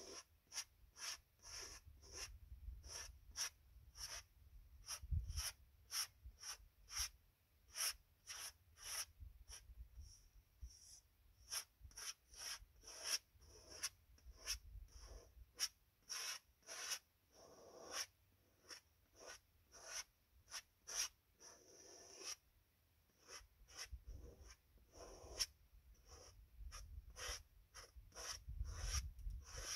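Brush or palette-knife strokes laying oil paint onto a large canvas: short scratchy strokes repeated about one or two times a second, with a few brief pauses.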